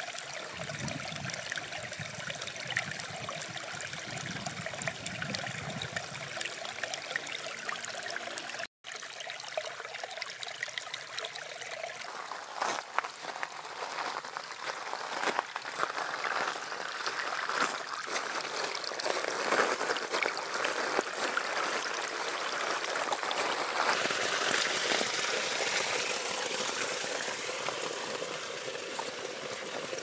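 Shallow garden brook trickling and babbling over gravel, pebbles and slate stones. It breaks off for an instant about nine seconds in, then comes back brighter and a little louder.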